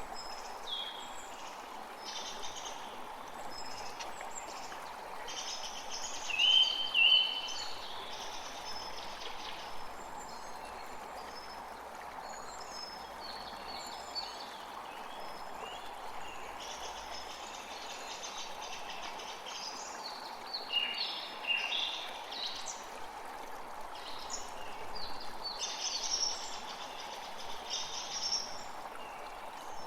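Steady rain hiss with songbirds chirping and trilling over it throughout; a loud bird phrase comes about six to seven seconds in, and another busy flurry of calls a little past twenty seconds.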